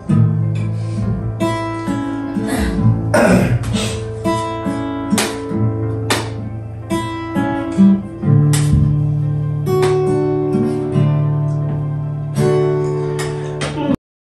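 Acoustic guitar strummed in chords, with a steady run of strokes and ringing notes. It cuts off suddenly near the end.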